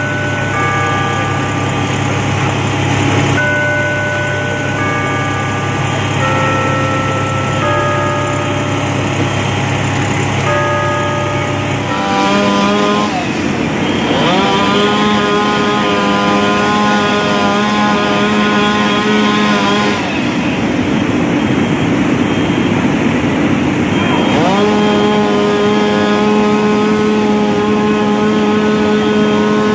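A low steady drone with scattered short tones, then about twelve seconds in a running engine's note takes over, held steady at high speed; it drops and climbs back twice, about a second in and again near the end of the second half.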